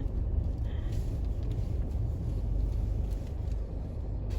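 Steady low rumble of a car heard from inside the cabin, with no horn or other distinct event.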